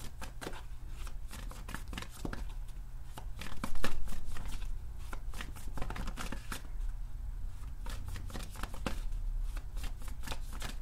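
A deck of tarot cards being shuffled by hand: a continuous run of quick card flicks and slaps, loudest about four seconds in. A steady low hum runs underneath.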